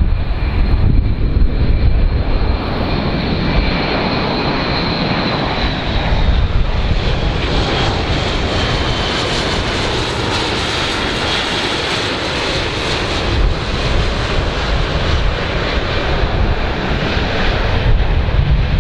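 Airbus A400M Atlas's four turboprop engines and eight-bladed propellers running loud as the transport flies low past, with a deep rumble under a high whine that slides down in pitch. The noise swells toward about ten to twelve seconds in and then eases off.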